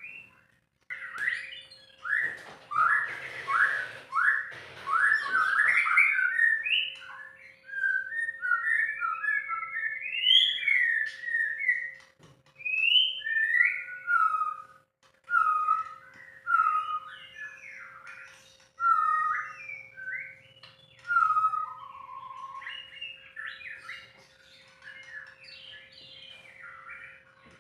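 White-rumped shama (murai batu) singing a long, varied run of whistled phrases with short pauses. A faint steady hum lies under the song, and a brief rustling noise comes a couple of seconds in.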